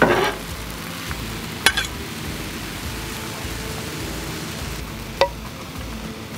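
Couscous, spinach and tomatoes sizzling steadily on a Blackstone flat-top griddle while metal spatulas scrape and tap on the griddle's steel top, with a scrape at the start and two sharp clicks, near two seconds and about five seconds in.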